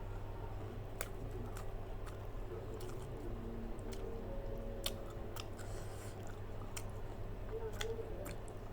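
A person chewing and biting food close to the microphone, with scattered sharp crunches, over a steady low hum.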